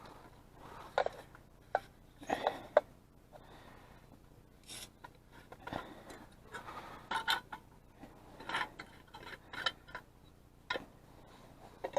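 Camp cookware and gear being handled: irregular rubbing, scraping and light clicks and knocks, a dozen or so scattered through the time.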